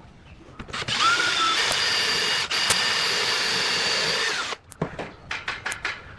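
A small electric power tool's motor, drill-like, spins up about a second in, runs steadily for about three and a half seconds, and winds down. Light clicks and knocks follow.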